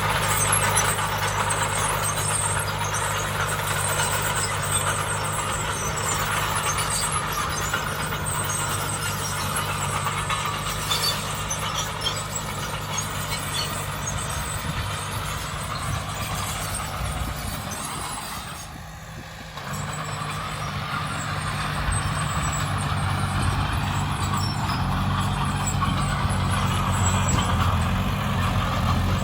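Heavy diesel engine of construction machinery running steadily under load, with a low hum and mechanical noise; the sound drops briefly about two-thirds of the way in, then picks up again.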